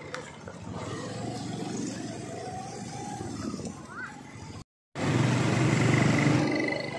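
Motor scooter engine running while being ridden along a road. The sound cuts out briefly about two-thirds through and comes back louder.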